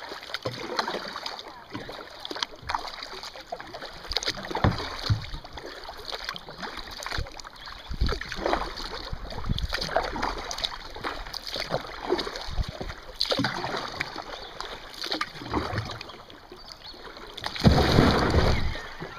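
Kayak paddle strokes dipping and splashing in slow river water, with water lapping at the hull. There is a louder rush of noise about a second and a half before the end.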